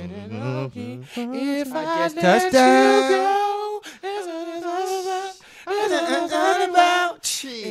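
Men singing an R&B song a cappella, unaccompanied, with long held and wavering notes and at times two voices at once.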